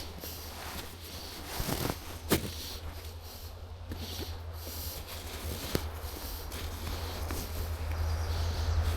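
Footsteps of hikers walking on a trail, with a few sharper snaps or crunches among them, over a low steady rumble that grows louder toward the end.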